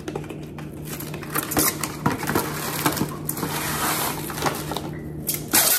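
Plastic cling wrap being pulled off its roll in a cardboard box, crackling and rustling, with a louder burst near the end as the sheet is torn off.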